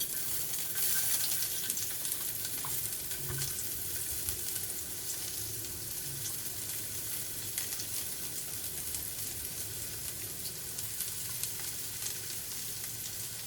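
Hot cooking oil in a pan breaking into a sizzle the moment food goes in, then a steady frying sizzle with faint clicks from stirring.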